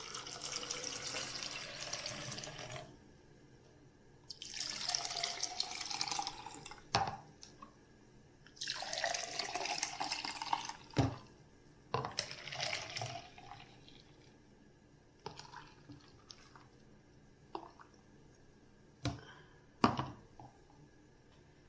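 Juice pouring from a blender jar into plastic cups: three long pours, then a shorter one, each a steady splashing stream. Sharp knocks fall between and after the pours.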